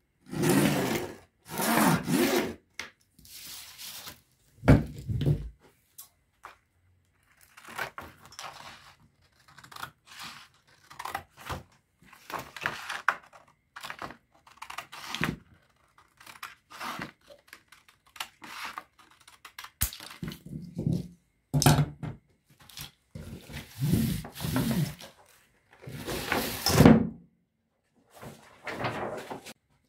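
Scissors cutting a strip of white plastic insulation sheet and the sheet being handled on a workbench: irregular rustling and crinkling with occasional thumps, loudest near the start, about five seconds in and near the end.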